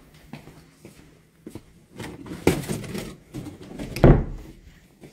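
Rustling and small knocks from a phone being carried by hand, with one loud, deep thump about four seconds in, like a door or cupboard knocking shut.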